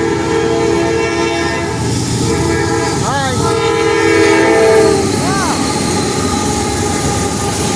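Norfolk Southern freight train passing close by over a steady rumble and clatter of wheels on rail. Its locomotive's multi-note air horn sounds a chord twice: the first blast ends about a second and a half in, and a second blast runs from about three to five seconds in.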